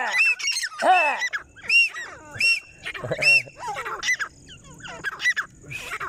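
Grey francolins calling: a run of short, high, arched notes repeated about once a second, overlapped by lower notes that slide downward, as more than one bird calls at once.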